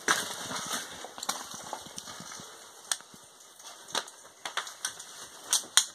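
Footsteps and scrambling over loose lava rock: irregular crunches and sharp clicks over a rustling haze, with the loudest clicks about four seconds in and twice near the end.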